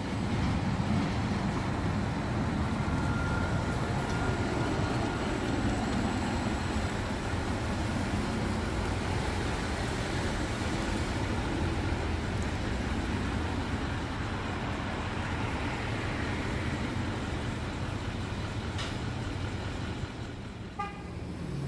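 City street traffic: heavy vehicles such as buses and trucks running past, with a steady low engine rumble. A short vehicle horn toot sounds just before the end.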